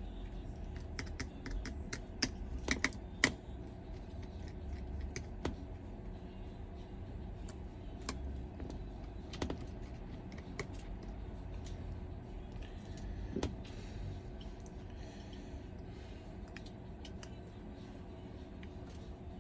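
Small irregular clicks and taps of hand tools and small parts being handled while an iPhone 11 is taken apart, with a quick group of sharper clicks about three seconds in, over a low steady hum.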